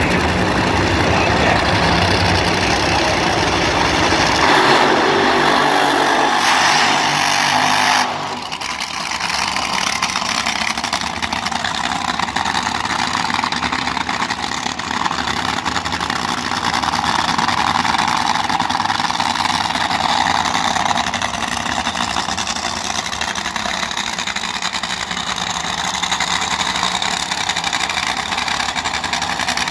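Supercharged nitromethane Funny Car engines running loud and hard with tyre smoke at the starting line. The loud sound stops abruptly about eight seconds in, and the engines then run steadily at a lower level while the cars back up and stage.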